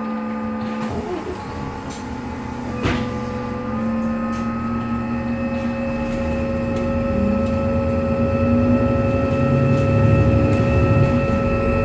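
Alexander Dennis Enviro 400MMC double-decker bus running with a loud whirring noise: several steady whining tones that step up slightly in pitch about four seconds in, while the bus grows gradually louder. A single sharp knock sounds about three seconds in.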